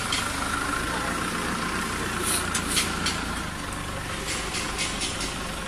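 Sharp metallic clicks from a hand tool worked on the steel frame of a roller heat press: a cluster about halfway through and lighter ones near the end. A steady low engine hum runs underneath.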